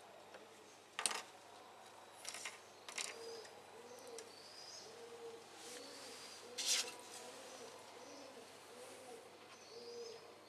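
A dove cooing over and over in short, low, arched notes, with a faint high chirping above it. A few sharp knocks and clinks cut through, the loudest about a second in and again past the middle, as a metal spoon and wooden clothespins are handled at a glass jar.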